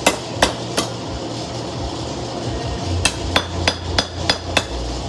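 Hand hammer striking a hot knife blade on a post anvil during forging: three quick blows, a pause of about two seconds, then a run of six blows at about three a second, each a sharp metallic strike.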